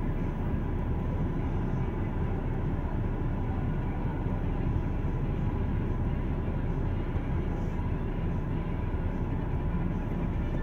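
Steady road and engine noise of a car heard from inside the cabin while driving.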